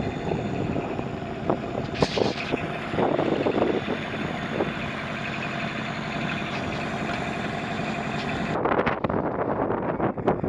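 Boat engine running steadily at idle, with a few knocks. About eight and a half seconds in the sound changes suddenly to wind buffeting the microphone and uneven knocks.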